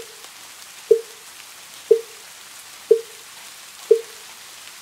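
Wooden fish (mu yu), the Buddhist temple block, struck in an even beat about once a second, each a short pitched knock with a brief ring, over a steady patter of rain.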